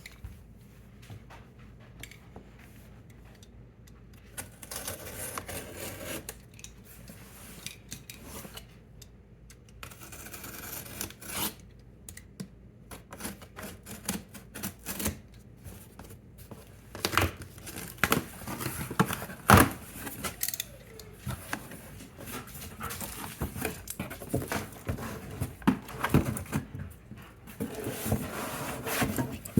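Unboxing a cast iron Dutch oven: rustling of paper and cardboard packing, then frequent knocks, clicks and clinks as the box, packing and pot are handled, busier in the second half with one sharp knock a little before the middle.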